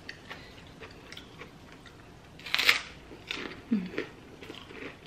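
Biting into crisp kerupuk (fried crackers) with a loud crunch about two and a half seconds in, followed by crunchy chewing in short crackly bursts.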